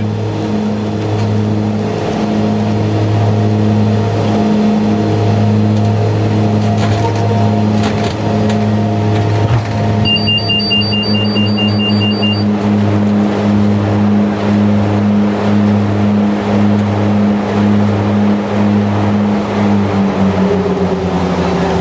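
BAe Jetstream 31's twin Garrett TPE331 turboprop engines and propellers droning in the cockpit on final approach, with a steady pulsing beat. About ten seconds in, a cockpit alert beeps rapidly, about four beeps a second for two and a half seconds. Near the end the engine note drops in pitch.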